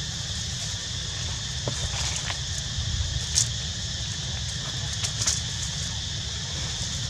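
Outdoor ambience: a steady high insect drone over a low rumble, with a few short crackles of leaves being handled, the loudest about halfway through.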